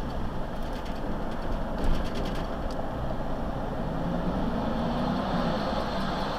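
Steady road and engine noise inside a moving vehicle in city traffic, with a brief jolt about two seconds in.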